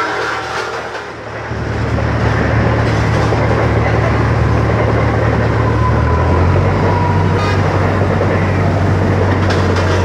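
Case double-drum road roller running as it drives along, a steady low drone that swells about a second and a half in and changes tone around six and a half seconds in.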